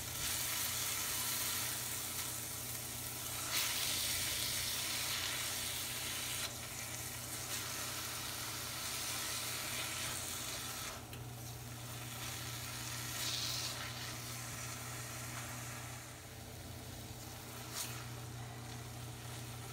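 Grated carrots frying in ghee and sugar in a wok, sizzling steadily as they are stirred and scraped around with a silicone spatula; the sizzle is the syrup from the dissolved sugar cooking off.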